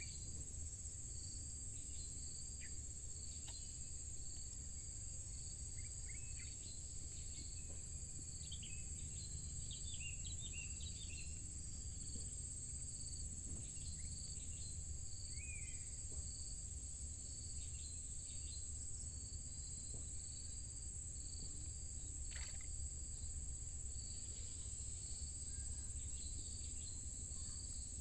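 A steady, high-pitched insect chorus, with a second insect repeating a short call about once a second over a low rumble and a few faint chirps.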